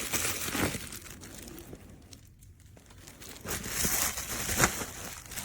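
Packaging crinkling and rustling as it is handled and pulled away from the camera, in two spells with a quieter moment in the middle.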